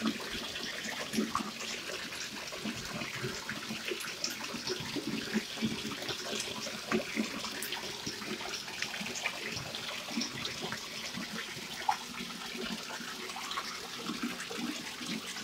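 Water running steadily into a bathtub, with many small splashes as a soapy puppy moves about in the water.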